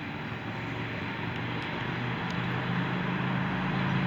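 A motor vehicle's engine hum that grows steadily louder, as if the vehicle is drawing near, with a few faint ticks.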